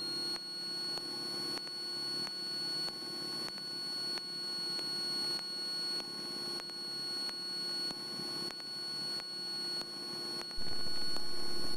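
Cessna 172's engine and propeller droning steadily on approach, heard as a muffled hum through the headset intercom, with a steady high whine over it and a regular pulsing in loudness about every half second.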